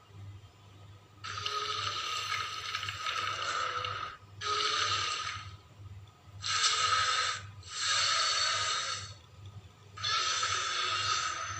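Godzilla (2002) creature sound effect: five breathy, hissing exhales, each about one to two and a half seconds long, with a faint low pulsing hum underneath.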